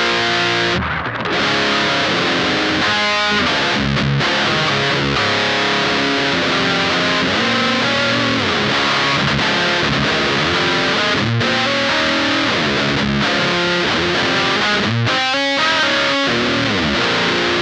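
Heavily distorted electric guitar playing riffs through an Electric Eye Cannibal Unicorn, an HM-2-style distortion pedal, with its bass, mid and treble knobs all set at noon (flat). The playing is loud and continuous, with brief breaks between phrases.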